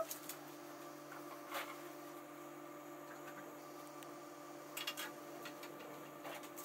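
Quiet room tone with a steady low electrical hum, and a few faint clicks and taps of small plastic pieces being handled, about a second and a half in and again around five seconds.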